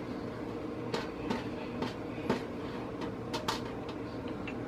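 Steady low background hum with a handful of short, light clicks and knocks scattered through it.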